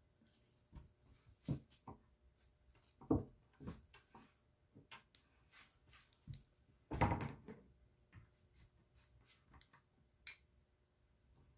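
Scattered knocks, clicks and thunks of objects being handled and set down, with one louder clatter about seven seconds in.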